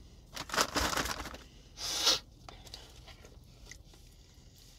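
Eating noises close to the microphone: a fork scraping on a plate, with a quick run of scrapes and crunches in the first second and one sharper, brighter scrape about two seconds in.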